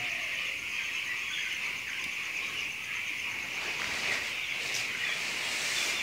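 A flock of young broiler chicks peeping together in a steady, continuous chorus.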